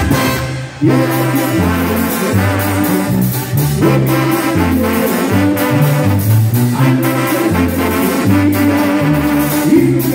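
A live banda brass section plays, with trumpets and trombones over a low bass line. There is a short break just under a second in, then the full band cuts back in.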